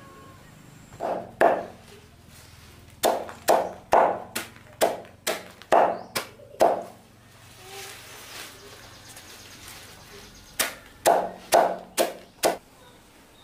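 A large machete-like knife chopping a pile of leafy greens on a plastic sack laid on the ground. There are two chops, then a run of about nine at roughly two a second, a pause, and five more near the end.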